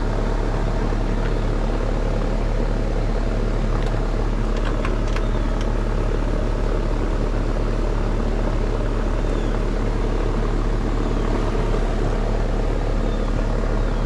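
Heat pump outdoor unit running: a steady, loud hum of compressor and condenser fan. A few light clicks come around four to five seconds in.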